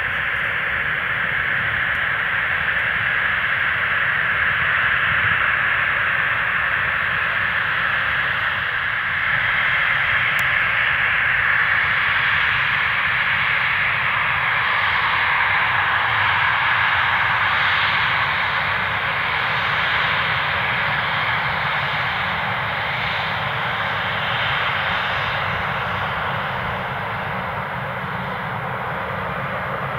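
Embraer 195's twin GE CF34-10E turbofan engines running at low thrust while the airliner taxis close by: a steady jet hiss with a low rumble beneath, easing slightly near the end.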